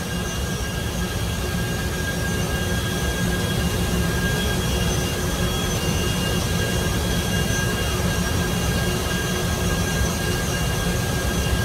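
Steady, loud roar of power-plant machinery near the top of a boiler, heaviest in the low end, with a few faint, steady whining tones over it.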